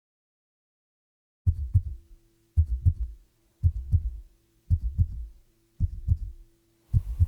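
Heartbeat sound effect: low double thumps, lub-dub, about once a second, six beats after a second and a half of silence, over a faint steady hum.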